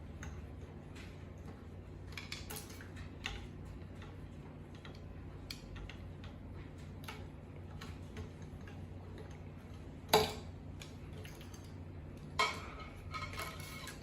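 Light metallic clicks and ticks of a screwdriver and small parts being handled while screws are taken out of a VCR's head-drum mechanism, with two sharper clinks later on.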